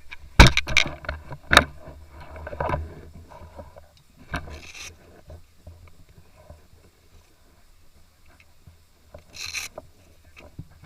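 Several sharp cracks of airsoft gun shots in quick succession in the first two seconds, the loudest about half a second in. Then the rustle and bumping of a player moving, with two short noisy bursts, one about four and a half seconds in and one near the end.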